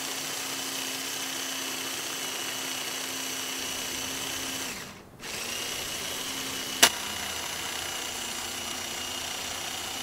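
Electric mini food chopper's motor running at a steady pitch as it chops onions and tomatoes fine, stopping for half a second about five seconds in and starting again. One sharp click a little before seven seconds.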